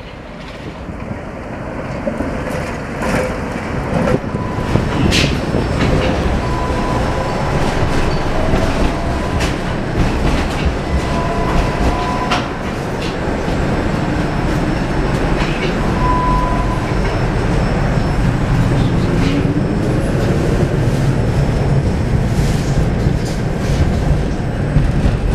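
Tatra T3 tram running on its rails, heard from on board: a steady rumble of wheels and traction gear, with a sharp clack now and then as the wheels pass over rail joints or points. A faint motor whine slides up and down in pitch as the tram changes speed.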